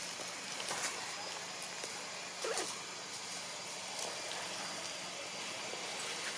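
Steady outdoor background hiss with a few faint clicks and rustles, twice rising a little, but no clear call or distinct event.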